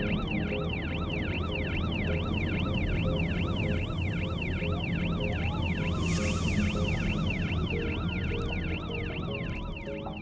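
Fire engine siren on yelp: a fast rising-and-falling wail repeating about three times a second. A slower siren tone rises and then falls from about halfway through, over background music and low road rumble.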